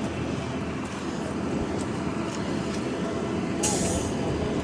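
Heavy diesel truck engines running steadily as the concrete pump truck and ready-mix truck work the pour, with a brief hiss about three and a half seconds in.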